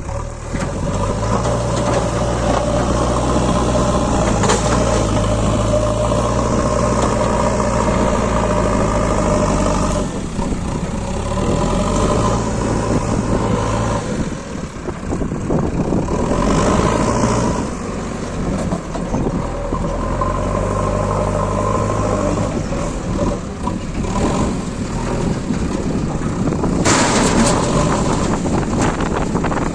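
JCB 3DX backhoe loader's diesel engine running at work, its note dropping and picking up again several times as the load changes. A short rush of noise comes near the end.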